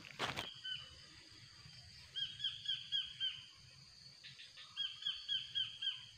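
Two runs of rapid, evenly spaced high chirps, about five a second, from a small animal, over a steady high drone of insects; a brief noise burst at the very start.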